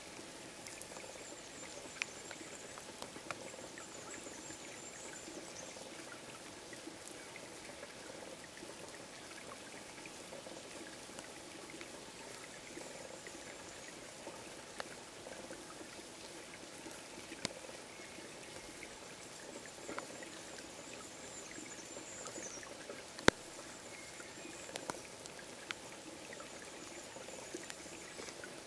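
Steady rain falling in a spruce forest, with scattered drips and taps and one sharp tap about three-quarters of the way through.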